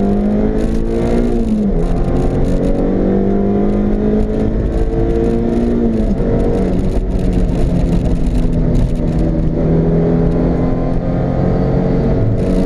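Honda CRX's four-cylinder engine heard from inside the cabin, accelerating hard with its pitch rising, dropping at upshifts about two seconds in and again about six seconds in. It then holds a steadier high pitch at around 130 km/h, over road and wind noise.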